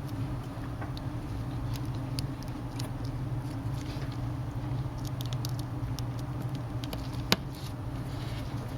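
Faint ticks and scratches of a small T6 Torx screwdriver driving tiny screws into a tablet's frame, with one sharper click about seven seconds in, over a steady low hum.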